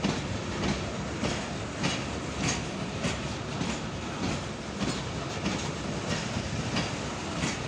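ZBKH covered hopper freight wagons rolling slowly along the track, their wheels clicking over the rail joints about every half second over a steady rumble.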